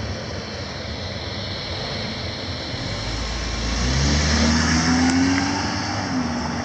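The last of a passing freight train fading away, then a car engine accelerating across the grade crossing from about three seconds in, its note rising.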